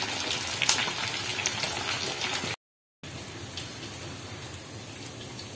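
Hot oil sizzling and crackling around a steamed leg of lamb frying in a black wok. The sound cuts out for about half a second just over two seconds in, then comes back fainter.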